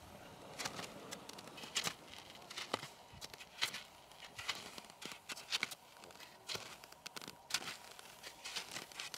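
Alpine skis shuffling back and forth on coarse, granular snow: short crunching scrapes, about one a second, unevenly spaced.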